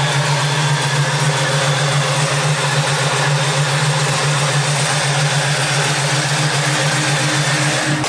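Fuel-injected 396 big-block V8 of a 1970 Camaro idling steadily.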